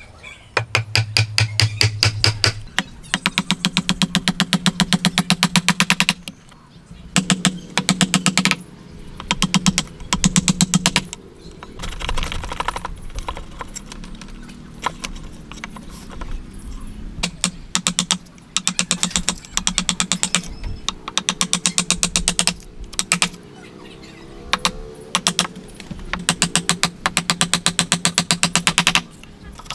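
Wood chisel being struck in rapid light taps as it chops into a timber joint, in bursts of one to three seconds at roughly ten blows a second, with a low ring from the wood block under the blows. Between the bursts, quieter scraping as the chisel pares out the waste.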